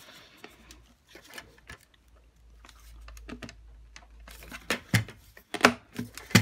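Hard plastic parts of a Dyson DC41 vacuum's cyclone assembly clicking and knocking as they are fitted together. The clicks come faster in the last second and a half and end in a sharp snap as a clip latches shut.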